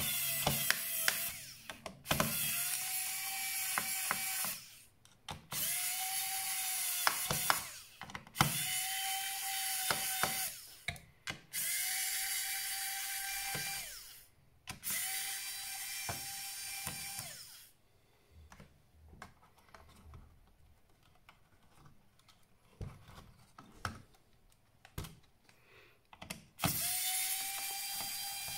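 Small electric screwdriver running in about seven short runs of two to three seconds each, its motor whine rising as it spins up and dropping as it stops, driving the screws of an HP 625 laptop's case. Near the middle there is a longer pause filled with light clicks and taps of parts being handled, before one last run near the end.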